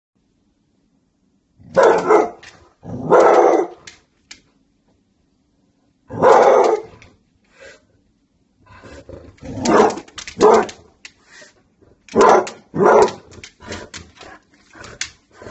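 Basset hound barking at a cat outside the window. Single barks come a few seconds apart, then a quicker run of barks over the last few seconds.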